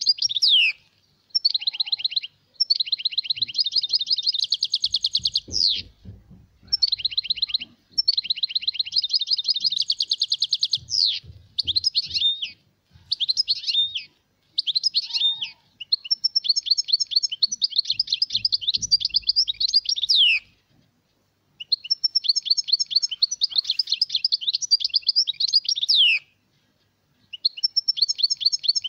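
European goldfinch singing: long phrases of fast, rapidly repeated high notes and trills lasting a few seconds each, broken by short pauses. It is a tutor song of the kind played to train young goldfinches.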